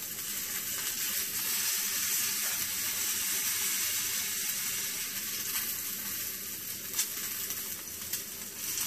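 A thick piece of spice-rubbed pork searing in olive oil in a nonstick frying pan, sizzling steadily as it browns. A few light clicks of metal tongs turning the meat come in the second half.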